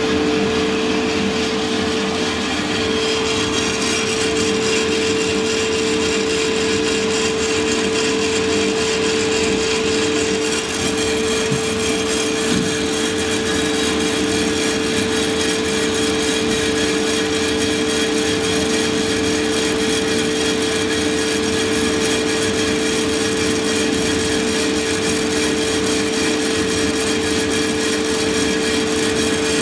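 Santoker R6 gas-fired drum coffee roaster running mid-roast. It gives a steady mechanical hum with a constant pitch, from the drum motor and exhaust fan with beans tumbling in the drum. The roast is still before first crack, with no cracks heard.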